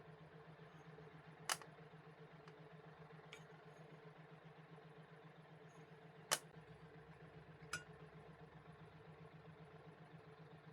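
Faint steady hum with a few sharp clicks, the loudest about a second and a half in and about six seconds in.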